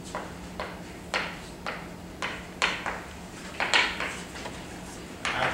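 Chalk writing on a blackboard: a quick series of short taps and scrapes, about two a second, with the strongest strokes a little past halfway.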